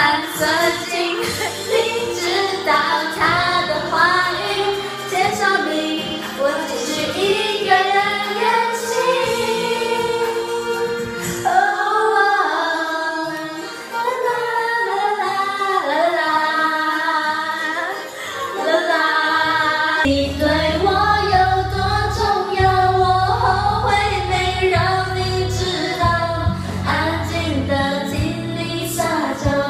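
Women singing karaoke together into microphones over a music backing track. The backing's bass drops away for several seconds midway and comes back heavier about two-thirds of the way through.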